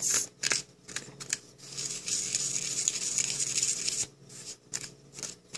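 A tiny plastic spoon scraping and stirring in a small plastic tray, mixing candy powder and water into a stiff, crumbly dough. Quick scrapes at first, a longer continuous scrape in the middle, then short separate scrapes and taps near the end.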